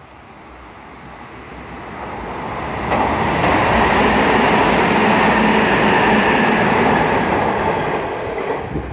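Hanshin 9000 series electric train passing through the station without stopping. It draws closer, rushes loudly past the platform from about three seconds in, then fades near the end.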